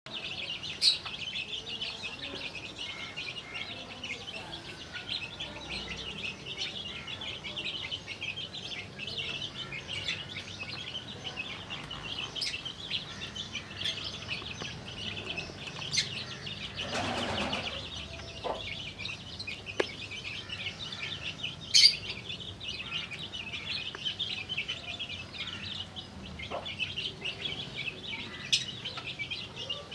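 Desi chicks peeping continuously in a high, busy chorus while foraging with their hen. A few sharp clicks stand out, and a short rustling burst comes about halfway through.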